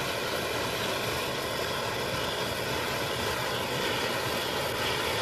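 Steady roar of petrol sprayed from a row of electric fuel injectors burning in a big flame.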